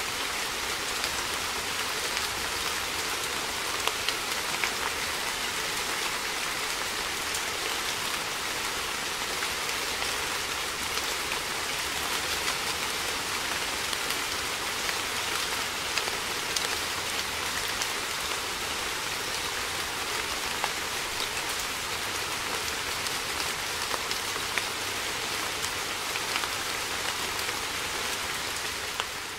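Steady rain falling: a constant hiss with scattered sharper ticks of individual drops striking surfaces.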